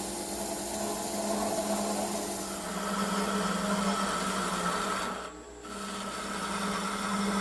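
Wood lathe running with a steady hum while a turning tool scrapes into the spinning wooden blank to set its diameters, with a brief break in the cut about five seconds in.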